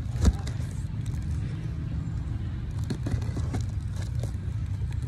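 Cardboard box being handled and opened by hand: a thump about a quarter second in, then scattered scrapes and crackles of cardboard flaps and packing tape, over a steady low rumble.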